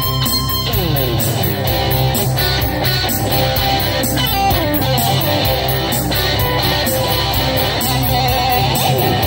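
Electric guitar played through effects pedals, a lead melody with several pitch dives and bends on the tremolo arm, over a steady backing beat with bass.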